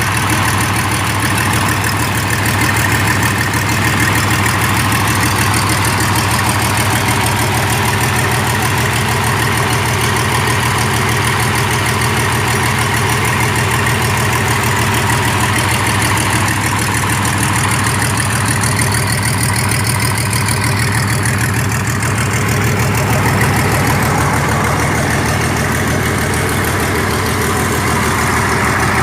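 Mitsubishi 6D14 inline-six diesel engine of a 75 kVA generator set running steadily at an even speed, freshly overhauled.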